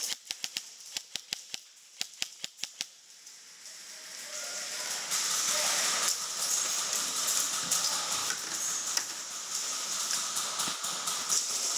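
Airsoft guns firing: a quick string of sharp snaps, about five a second, over the first three seconds. From about four seconds in a steady hiss with scattered ticks takes over.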